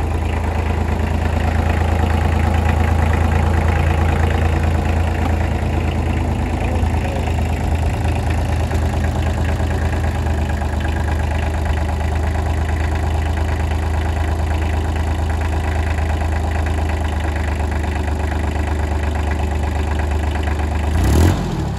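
Kubota L245H compact tractor's diesel engine idling steadily. Near the end there is a brief louder burst, and the engine sound then drops away.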